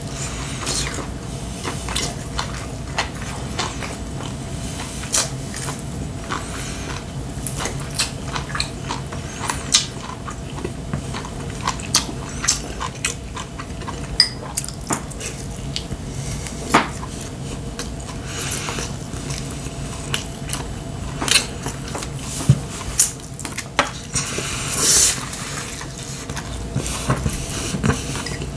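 Close-up eating sounds: chopsticks clicking and tapping against ceramic bowls and plates at irregular moments, with chewing in between.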